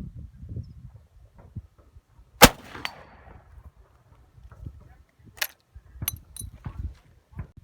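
A single shot from a .577/.450 Martini-Henry black-powder rifle about two and a half seconds in, with a brief echo trailing after it. Several lighter sharp clicks follow.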